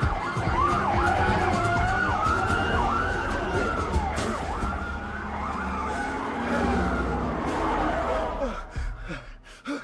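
Several sirens wailing at once, police-style, their pitches rising and falling and crossing over a low rumble. They fade out near the end.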